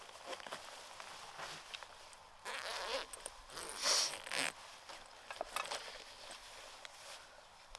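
Supplies being rummaged through and handled: rustling, small knocks and clicks, with two longer scraping sounds about two and a half and four seconds in, the second the loudest.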